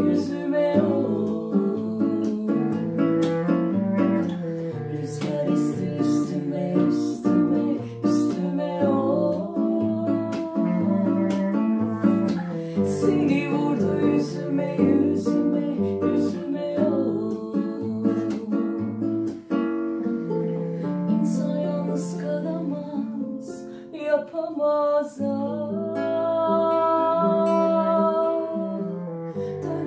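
Nylon-string classical guitar and clarinet playing a Turkish song together, with a woman singing. The guitar keeps a steady plucked bass-and-chord pattern, and near the end a long melody note is held.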